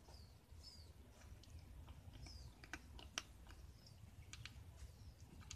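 Kittens crunching dry cat kibble: faint, irregular crisp clicks, a few louder ones after about the middle.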